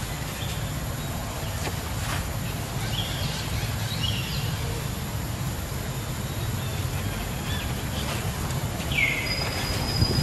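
Outdoor ambience: a steady low rumble with a few faint, short high chirps, and a brief rising high call about nine seconds in.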